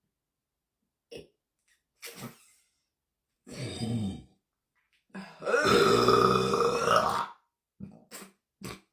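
A woman burping: a shorter burp about three and a half seconds in, then one long, loud burp lasting about two seconds, followed by a few short sounds near the end.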